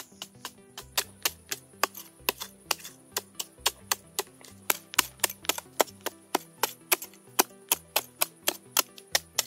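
A small hand tool chipping into hard, dry termite-mound earth: rapid sharp strikes about four a second, some louder than others. Background music with a low stepping bass line plays underneath, along with a steady high hiss.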